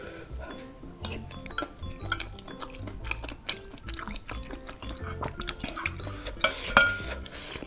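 Metal spoon and fork clinking and scraping against a ceramic soup bowl as meatballs and broth are scooped up, over background music. The loudest is a sharp clink with a brief ring about a second before the end.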